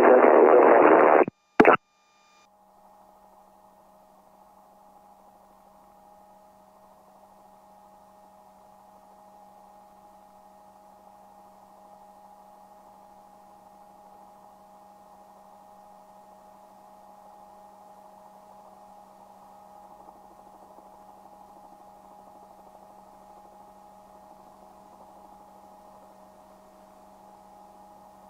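Faint steady hum with a few steady tones in a helicopter's headset intercom audio. A radio transmission cuts off about a second in, followed by a short click.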